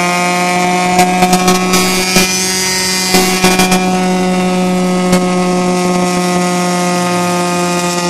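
1974 Wayne wood chipper running steadily at a constant pitch, with bursts of sharp cracks and rattles about a second in and again around three seconds in.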